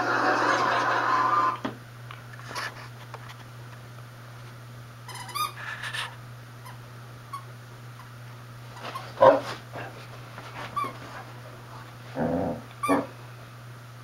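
Basset hounds playing, giving short high-pitched whines and yips around five and nine seconds in, and lower, longer yelps near the end, over a steady low hum. A loud, indistinct noisy sound fills the first second and a half.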